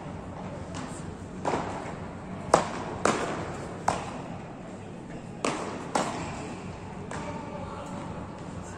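Beach tennis paddles striking the ball in a rally: a string of about eight sharp pops, roughly half a second to a second apart, the loudest about two and a half seconds in, each echoing briefly in a large indoor hall.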